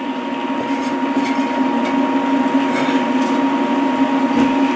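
Portable induction cooktop running with a steady hum and a thin, high, steady whine, with a few faint light knocks in the pan.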